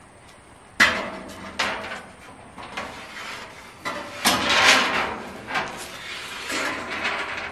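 A long sheet of ribbed metal siding being handed up and handled against a scaffold, clattering and scraping, with a sharp bang about a second in and a longer scrape around the middle.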